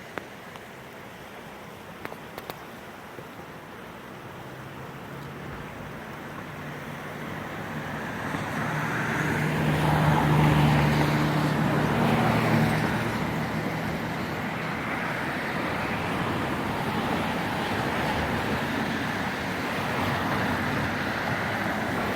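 A motor vehicle's engine and tyre noise growing louder, loudest about halfway through, then running on steadily.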